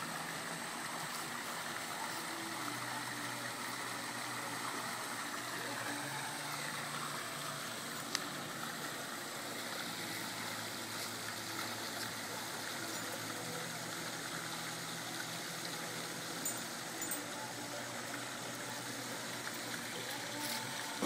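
Steady wash of running water from a swimming pool, with a low steady hum underneath and a few faint clicks.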